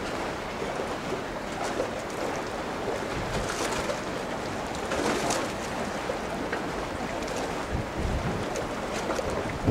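Wind buffeting the camcorder microphone in uneven low gusts over a steady outdoor rushing noise.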